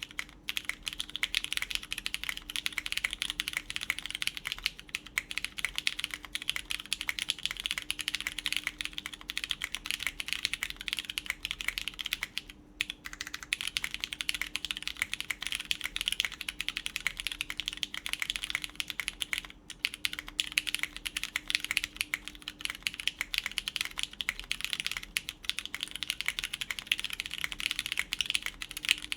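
Continuous fast typing on a mechanical keyboard with lubed Cherry MX Brown tactile switches, GMK keycaps, a PEI plate and a copper case. The typing stops briefly twice, about a third of the way in and again about two-thirds in.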